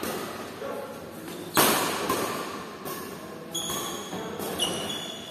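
Badminton rally: rackets striking the shuttlecock with sharp cracks that echo, the loudest about one and a half seconds in and several lighter hits after it. Shoes squeak briefly on the court near the end.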